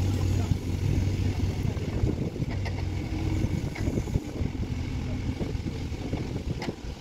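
JCB telehandler's diesel engine running steadily as its boom lifts a hanging length of conveyor belt, a low hum with a few faint knocks.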